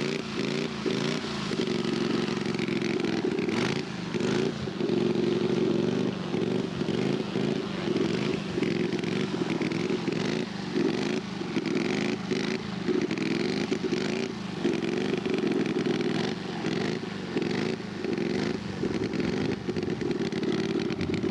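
Radio-controlled scale model airplane engine running steadily, its pitch dipping briefly and coming back up about once a second.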